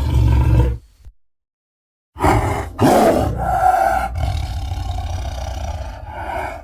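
Designed Acrocanthosaurus dinosaur roar sound effects: a deep roar ends about a second in. After a second of dead silence, a second long, deep roar with a few breaks in pitch runs for about four seconds and then cuts off suddenly.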